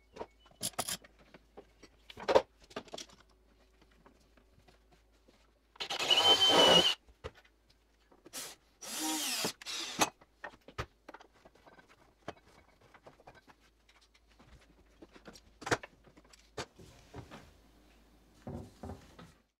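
Power drill run in two short bursts of about a second each, fastening a strip of cherry trim under a wall cabinet, with light clicks and knocks of handling before and after.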